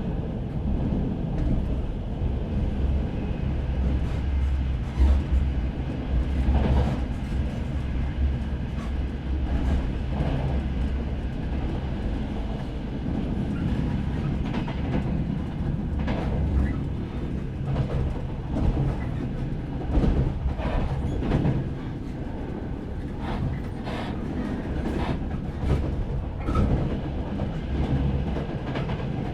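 Train running along the track: a steady low rumble with irregular clacks of the wheels over the rails.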